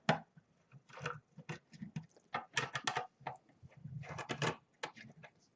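Irregular small clicks, taps and scrapes from handling a mini PC's metal case and its small chassis screws.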